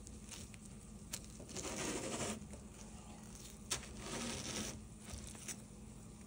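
Hands gripping and turning a large whole watermelon on a ridged metal surface: two scraping, rustling stretches of about half a second each, with a couple of light knocks.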